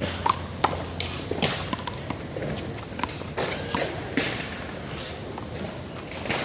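A one-wall handball rally: a series of sharp slaps at an uneven pace of about two a second, as the small rubber ball is struck by hand and rebounds off the wall and the court.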